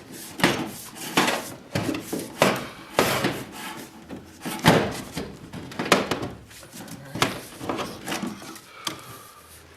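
Irregular knocks, scrapes and rubbing as an old electrical cable is pulled out and worked loose against wooden wall studs.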